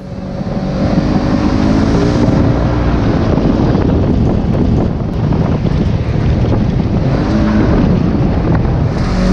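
Polaris RZR side-by-side engine running under load, its pitch climbing as it accelerates about two seconds in and again near the end, with wind rushing over the microphone.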